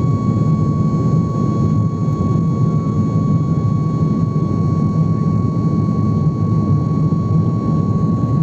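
Jet airliner cabin noise in flight: a steady low rumble of the engines and airflow, with a constant high whine over it.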